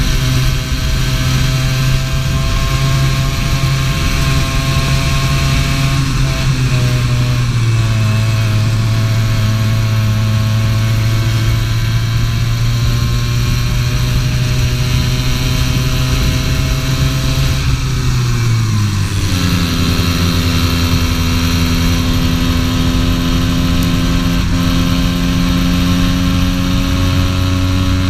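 80cc two-stroke racing kart engine running at high revs, heard from on board the kart. About two-thirds of the way through the revs drop sharply, then climb slowly and steadily again.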